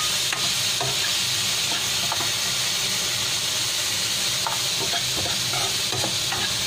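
A spatula stirring split lentils in a wok: grains rattling and the spatula scraping the pan, over a steady sizzling hiss as the lentils toast.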